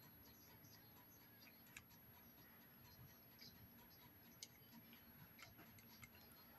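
Near silence: room tone with two faint small clicks, the first about two seconds in and the second about four and a half seconds in.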